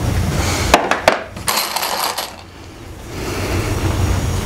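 Small plastic clicks and a brief rustle from fingers working the clogged tip of a glue bottle: two sharp clicks about a second in, then a short high rustle. A steady low rumble fills the rest and drops away for a couple of seconds after the clicks.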